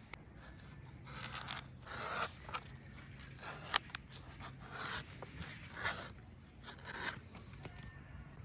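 Damascus pocket knife blade scraping and cutting into the husk of a young coconut, in a series of short strokes about a second apart, with one sharp click.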